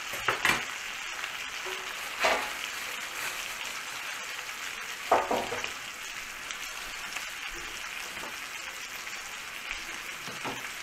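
Lamb shoulder searing in hot oil in a frying pan: a steady sizzle, with four sharp, louder clicks standing out over it. This is the first browning to build a crust before roasting.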